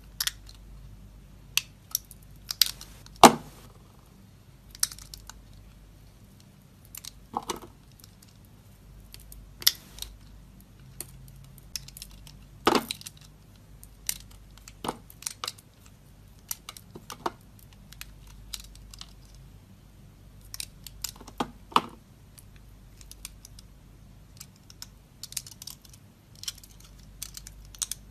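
Bar soap being cut with a knife: irregular crisp cracks and clicks, some single and some in quick clusters, the loudest a little after three seconds and again about thirteen seconds in.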